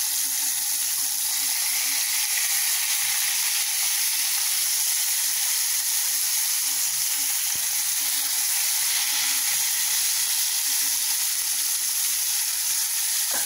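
Fish fillets frying in hot oil in a pan, a steady sizzle.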